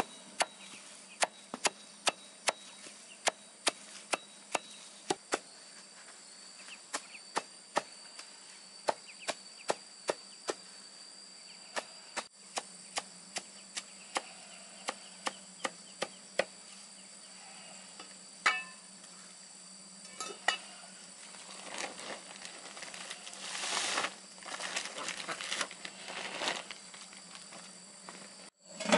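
Repeated sharp chopping or knocking strokes, about one to two a second for most of the stretch, then a few scattered strokes and a spell of scraping rustle near the end. Insects keep up a steady high buzz underneath.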